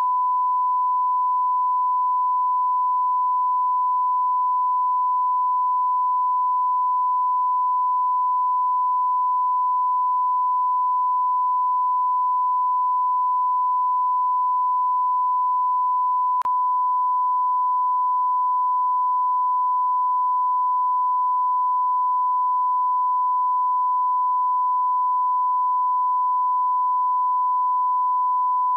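Steady 1 kHz sine-wave test tone, the line-up tone played with television colour bars. There is one faint click about halfway through.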